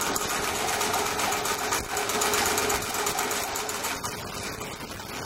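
Singer 348 sewing machine running steadily, stitching a straight seam at maximum stitch length through a thick denim hem of about nine layers.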